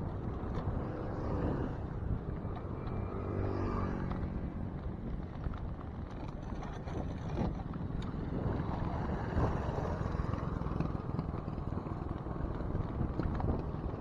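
Steady low rumble of riding noise on a bicycle rider's action camera, with a motor engine passing a few seconds in, its pitch gliding as it goes by.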